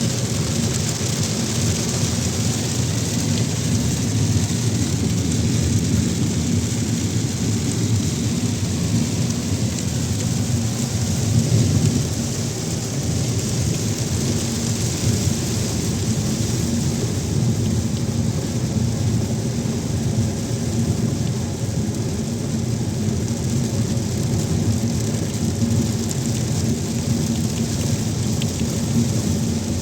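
Steady heavy rain falling, a continuous hiss with a low rumble beneath it.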